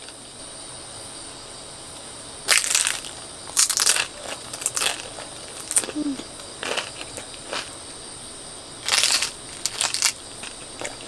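Crunchy chewing of crisp pan-fried flat dumplings (납작만두), in short crunches about a second apart, loudest early on and again near the end. A steady high trill of crickets runs underneath.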